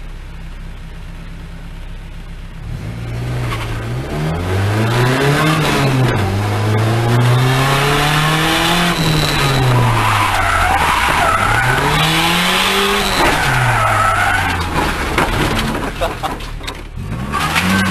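A car's engine heard from inside the cabin, ticking over for about two seconds and then revving up and down again and again under hard driving, with the tyres squealing as the car slides.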